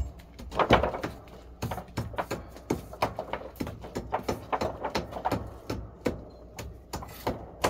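A string of irregular sharp knocks and taps, several a second, with some louder than others.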